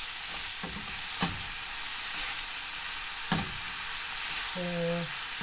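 Rice noodles and vegetables frying in a hot pan as they are stirred: a steady sizzling hiss, with two sharp knocks of the utensil against the pan, about a second in and again past three seconds.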